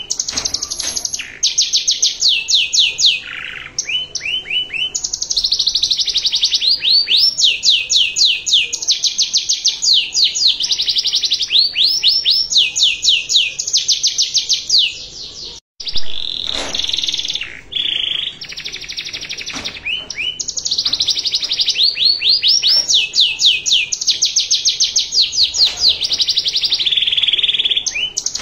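Domestic canary singing a long, continuous song made of fast trills: runs of many quickly repeated notes, some rising or falling in pitch, changing from one run to the next. The song breaks off briefly about halfway through.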